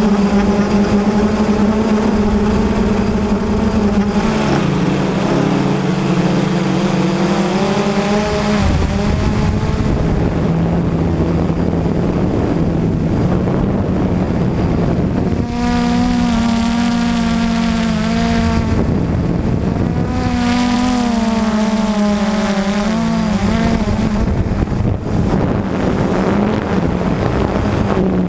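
Blade 350 QX3 quadcopter's four electric motors and propellers running in flight, a close, loud hum with a whine on top. Its pitch shifts up and down several times as the motors change speed.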